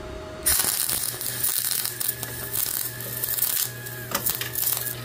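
MIG welder arc crackling as it welds uncleaned 3/16-inch steel, with the welder's steady hum underneath. The crackle thins out and breaks up near the end as the machine runs out of wire.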